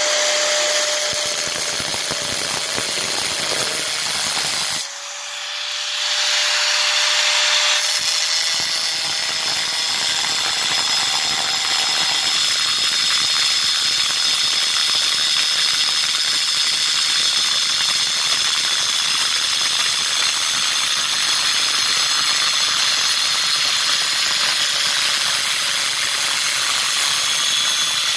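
Makita angle grinder with a diamond wheel cutting through a stone paving tile: a steady, loud motor whine over the hiss of the wheel grinding the stone. The level dips briefly about five seconds in, then comes back up.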